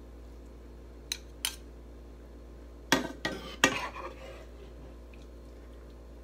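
Metal spoon clinking against a pan and a ceramic bowl while noodles are served with a spoon and a plastic spatula: two light clicks, then three louder clinks about three seconds in.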